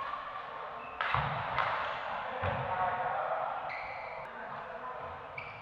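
Doubles badminton rally in a reverberant sports hall: sharp racket hits on the shuttlecock about a second in and again around two and a half seconds, then short high squeaks of players' shoes on the court mat, with players' voices.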